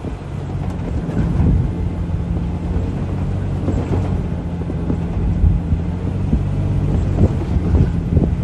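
Toyota Land Cruiser 100 series engine running at a steady pitch as it drives over sand, with wind buffeting the microphone.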